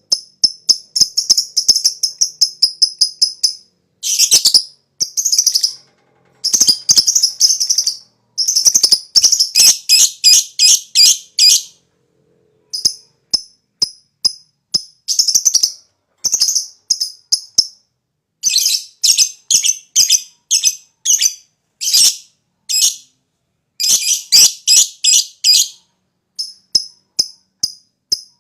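Lovebird chattering in runs of rapid, shrill chirps, about four or five a second, broken by short pauses: the long 'ngekek' song that keepers prize.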